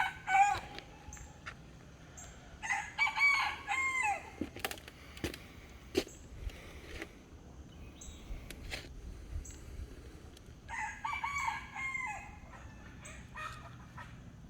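Roosters crowing: loud crows near the start and about three seconds in, another about eleven seconds in, with fainter crowing between.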